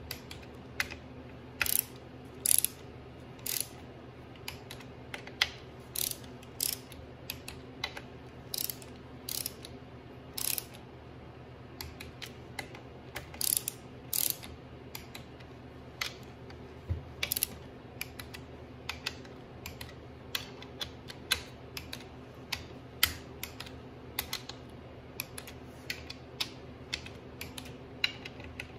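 Ratcheting torque wrench clicking in short runs with pauses between, as valve body bolts on a Mopar 904 automatic transmission are run down to 50 inch-pounds.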